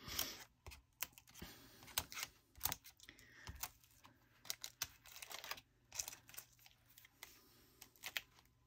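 Fingernails clicking and scratching on a sheet of paper stickers as the stickers are poked out through the backing and peeled off: faint, irregular clicks with soft paper rustling.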